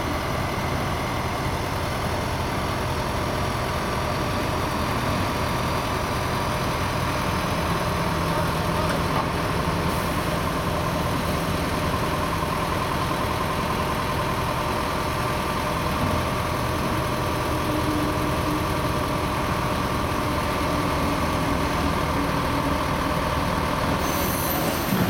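Truck-crane diesel engine running steadily as the cranes hoist a heavy scrap-shear frame.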